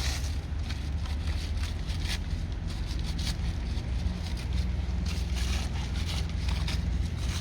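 Nilfisk Multi II wet and dry vacuum cleaner running steadily, with short irregular hissing crackles over the motor's low drone.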